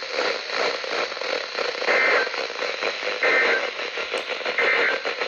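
Weather radio receiver static with three short bursts of shrill two-tone data. This is the EAS/SAME end-of-message code that closes the flash flood warning broadcast. The bursts start about two seconds in, a little over a second apart.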